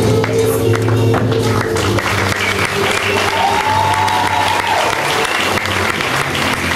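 Audience applauding over music with long held notes; the clapping grows denser about two seconds in.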